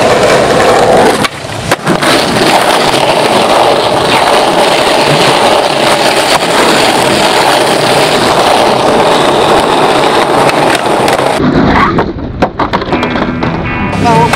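Skateboard wheels rolling loudly over rough pavement, with a couple of sharp clacks about a second in. Near the end the rolling fades and several board clacks follow.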